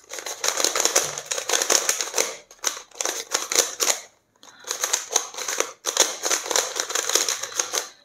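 Non-magnetic plastic YuXin Treasure Chest 3x3 puzzle cube being turned quickly by hand, its layers clicking and clacking in rapid runs, with a brief pause about four seconds in.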